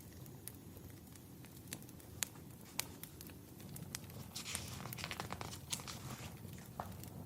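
Wood fire crackling, with scattered sharp pops over a soft steady hiss and a denser crackling rustle about halfway through.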